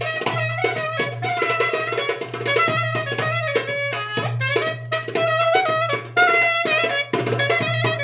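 Caucasian wedding dance music played live by a band: a bending melody line over fast, dense drumming.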